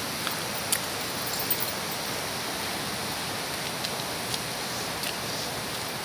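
Steady rush of running water from a river running high, with a few faint clicks.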